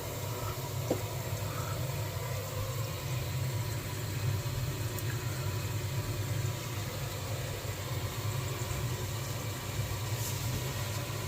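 A steady low hum under the kitchen sink while the tap runs water into the drain, checked for leaks after a loose P-trap nut was tightened.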